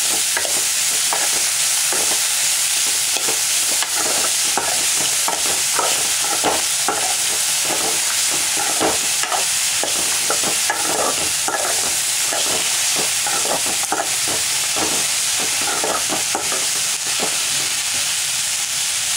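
Chopped green beans frying with a steady sizzle in a metal pan while a spoon stirs them, scraping against the pan again and again.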